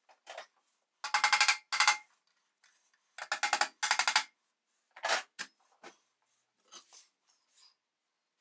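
Four short bursts of fast, evenly spaced clicking, then a single knock about five seconds in and a few lighter clicks, from the painted sheet-metal parts of a kitchen scale being worked on and set down.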